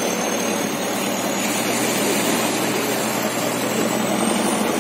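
Range Rover's engine running under load as it tries to pull out of wet sand, blended with a steady rush of surf and wind; a faint high whine rises slowly.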